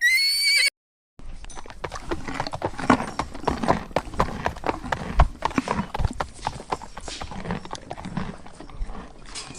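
A horse's short, high, wavering whinny at the very start, then after a brief silence a long run of irregular hoofbeats clopping.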